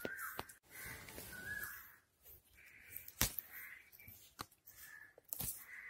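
Crows cawing repeatedly, a string of short harsh calls. Several sharp clicks from close handling sound among them, the loudest a little after three seconds in.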